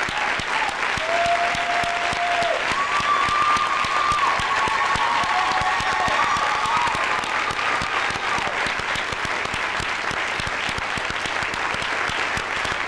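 Large audience applauding steadily, with several long held cheers sounding over the clapping.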